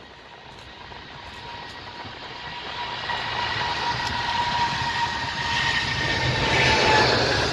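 Jet airliner's engines approaching, growing steadily louder throughout, with a high whine that sinks slightly in pitch over a broad rushing noise.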